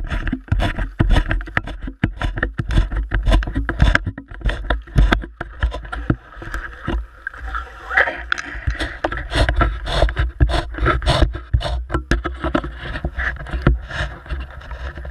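Close handling noise on a GoPro: a jacket rubs and knocks against the camera while someone works right beside it, making a stream of irregular rustles, scrapes and knocks over a low wind-like rumble.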